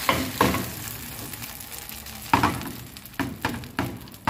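Hot caramel sizzling and bubbling in a metal loaf pan. The sizzle fades over a few seconds, and the pan gives several sharp knocks against the stove grate as it is tilted to spread the caramel.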